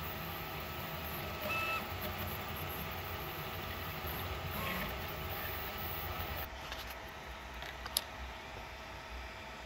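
Prusa MK3S-based 3D printer (Caribou/Zaribo conversion, running Klipper firmware) printing: stepper motors whirring under steady fan noise with a few fixed tones. About six and a half seconds in, the printer noise drops away to a steady fan hiss, and a single sharp click comes about eight seconds in.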